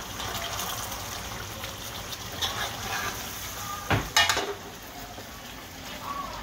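Fish curry cooking steadily in a large metal pot as a long metal spoon stirs it, with small scraping clinks throughout. About four seconds in, the spoon strikes the pot in a sharp clatter.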